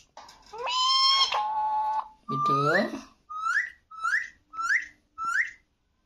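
Alexandrine parakeet vocalising: a long whistled note that steps down in pitch, then a word-like 'medu', then four short upward-rising chirps about half a second apart.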